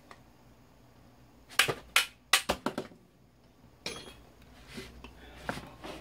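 Hammer striking the steel stator of a 1998 LG FW-1621 wall fan motor to drive out its copper windings: a quick run of about six sharp metallic knocks around two seconds in, then a brief clatter and a few lighter knocks.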